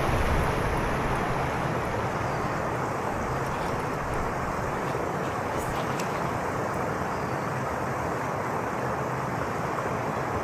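Steady outdoor rushing noise at an even level, with no distinct events apart from a few faint ticks around the middle.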